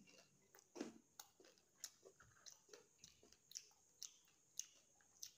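Faint chewing of a mouthful of pani puri: a run of short, sharp crunches and mouth clicks, about three a second.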